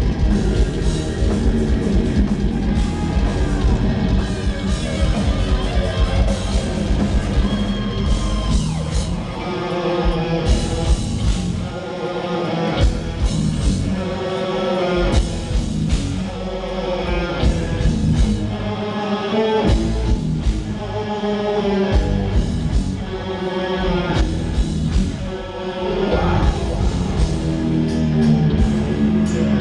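Death metal band playing live and loud: distorted electric guitars, drums and sung vocals.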